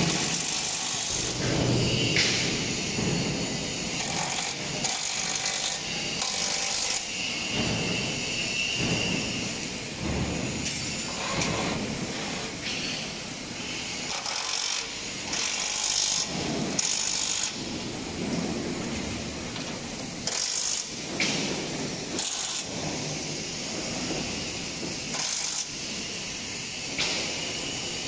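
Workshop noise of truck chassis assembly: irregular tool and metal clatter with repeated short bursts of hiss-like power-tool noise.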